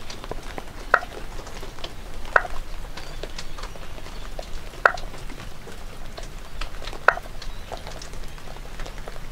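Short, sharp tocks from inside a stormwater drain under a lawn grate: four loud ones at uneven gaps of about one and a half to two and a half seconds, with fainter ticks between, over light rain pattering. The owner takes them for a green tree frog calling from the drain pipe, echoing in it, though they are also taken for water dripping in the drain.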